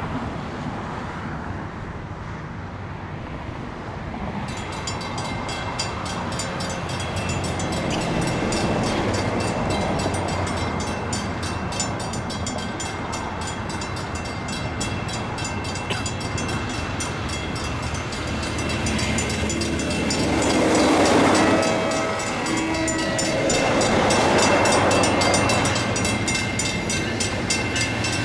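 Railroad grade-crossing signal bell starting about four seconds in and ringing rapidly and steadily as the crossing activates. A train approaches, and its horn sounds in two louder blasts in the second half.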